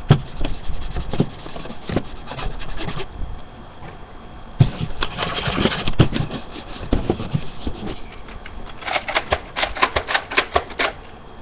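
Plastic parts of a Nerf Retaliator blaster being handled and fitted together: a run of clicks, knocks and rattles as the grip is pushed on, with a quick cluster of sharp clicks near the end.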